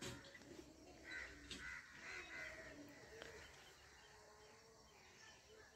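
Crow cawing faintly, about four quick harsh calls starting about a second in, over quiet outdoor background.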